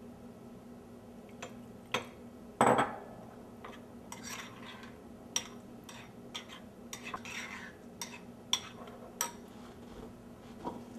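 Metal spoon stirring a thick mustard-and-yogurt marinade in a ceramic bowl, scraping and clinking against the bowl at irregular moments. A louder knock comes a little under 3 seconds in.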